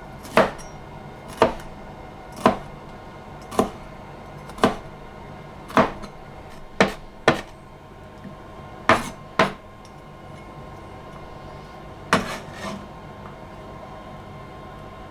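Kitchen knife chopping on a cutting board in slow, separate strokes, about one a second, a dozen in all, with a pause near the end.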